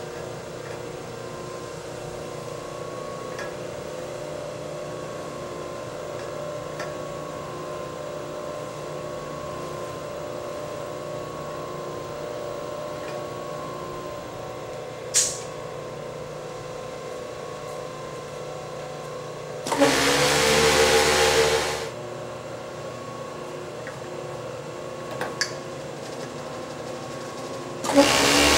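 Atlanta 1347MA auto faux tape edge sewing station humming steadily. A brief sharp hiss comes about halfway through. Its industrial overlock sewing head runs for about two seconds about two-thirds in and starts running again near the end.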